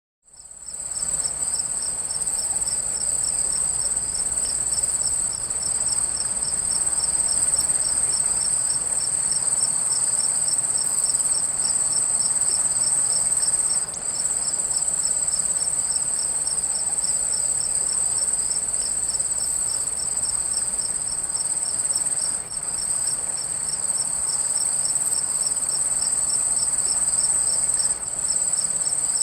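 Crickets chirping over a running stream. One cricket holds a continuous high trill while another chirps in even, regular pulses, with the water as a soft steady rush underneath. It fades in at the start.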